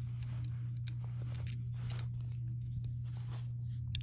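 Faint, scattered clicks of plastic Lego bricks being handled and pressed together, over a steady low hum.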